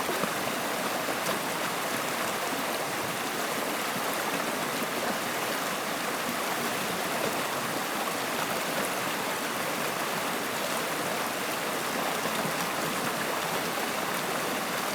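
Running water of a stream, an even, steady rush with small gurgles scattered through it.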